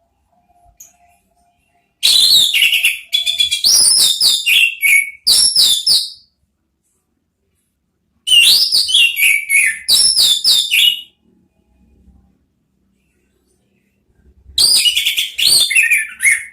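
Orange-headed thrush singing: three bursts of fast, loud whistled notes, many sliding down in pitch, with silent pauses between the bursts.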